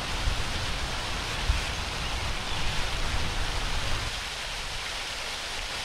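Steady rain falling in a thunderstorm, an even hiss throughout, with low gusty rumbles underneath that fade out about four seconds in.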